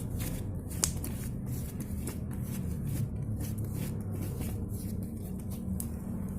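Irregular clicks and crackles of hands handling and mixing powder and soap for slime in a container, over a steady low hum.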